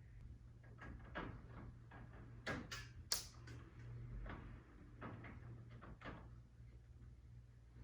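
Faint scattered knocks and clicks, one sharper than the rest about three seconds in, over a low steady hum.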